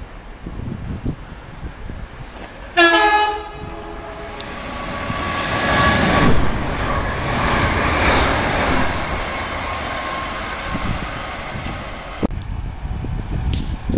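An electric multiple-unit train gives one short horn blast, then comes closer on the line. Its wheels run loudly on the rails and its motors whine steadily, growing louder as it nears. The sound drops off abruptly near the end.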